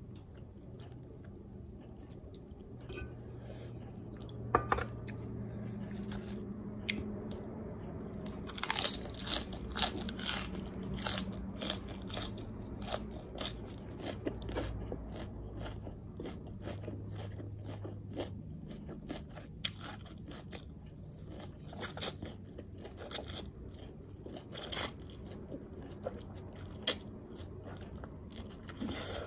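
Close-up eating sounds: a crunchy mouthful, such as a lettuce wrap or fried chicken, being bitten and chewed, with many short crisp crackles and wet mouth clicks. Noodles are sucked in near the end.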